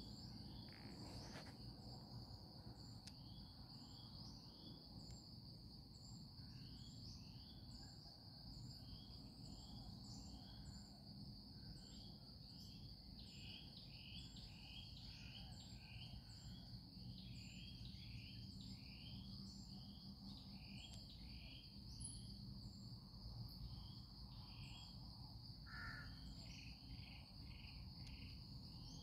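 Faint outdoor insect chorus: a steady high-pitched buzz, with runs of short repeated chirps from about seven seconds in.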